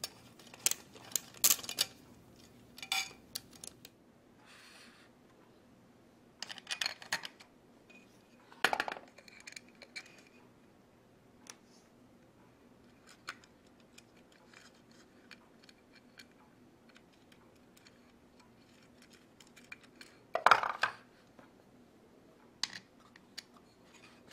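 Irregular small metallic clinks, taps and scrapes of screws and nuts being handled and tightened on an aluminium quadcopter frame, with a short scrape about five seconds in and the loudest knocks about nine and about twenty seconds in.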